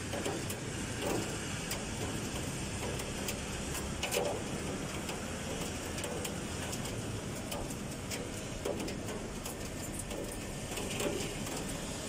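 Steady hiss of typhoon rain, with scattered sharp ticks of drops striking nearby surfaces.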